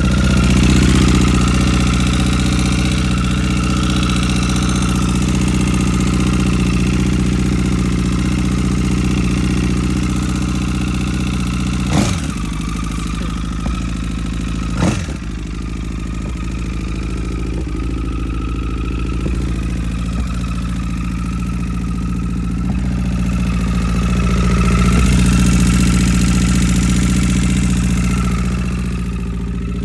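2009 Honda CBR1000RR inline-four engine idling with a whine and a tick, noises that appeared after its connecting-rod and journal bearings were replaced. Near the middle come two sharp backfire pops, about three seconds apart.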